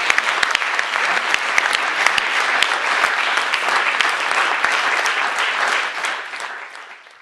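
Audience applauding, a dense patter of many hands clapping, which dies away near the end.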